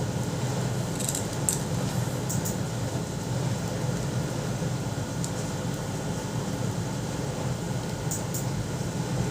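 Steady low background hum, like room air conditioning, with a few faint soft ticks scattered through it.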